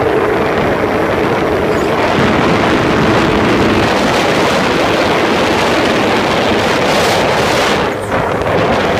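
A boat's engine running steadily under way, with wind buffeting the microphone and water rushing past. There is a short dip in the sound about eight seconds in.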